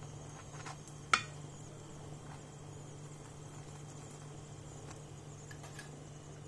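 A steel spatula tapping sharply once against the tawa (flat griddle) about a second in, just after a lighter tap, over a steady low hum and faint hiss; a couple of faint ticks follow near the end.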